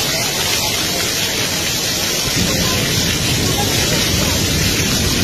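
Dancing fountain's water jets spraying, a steady loud hiss of falling water, with people's voices around it.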